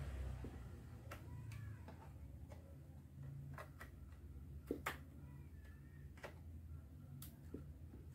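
Scattered light clicks and taps of hard plastic and metal parts being handled, about a dozen spread irregularly with the loudest pair a little before the middle, over a steady low hum.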